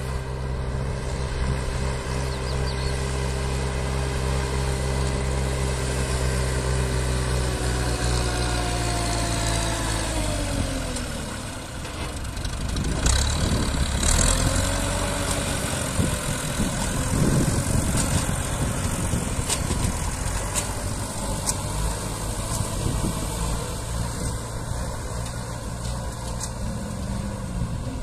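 Tractor engine idling steadily, then its pitch drops about ten seconds in and it runs unevenly, rising and falling in pitch, with occasional knocks.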